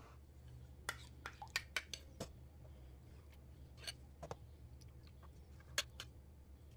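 Metal spoon clinking against a ceramic bowl: a quick run of light, sharp clinks in the first couple of seconds, then a few more scattered ones, over a faint steady low hum.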